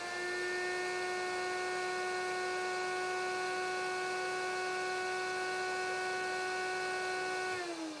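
Fuji Q4 HVLP turbine running at full speed: a steady, high motor whine over a hum. Near the end it is switched off and winds down, its pitch falling.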